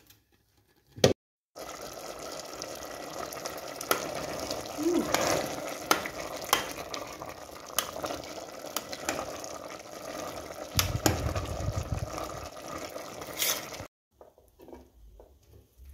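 Metal ladle stirring curried chickpeas in an aluminium pot, with scattered clicks and knocks of the ladle against the pot over a steady simmering hiss. The sound cuts off abruptly near the end.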